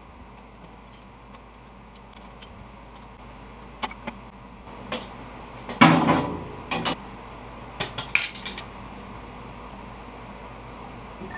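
Metal wrench and bolt clinks and clanks while the lathe's old single-speed motor is unbolted from its mount. A few faint ticks come first, then a run of sharp clanks starts about four seconds in, the loudest near the middle with a short ring.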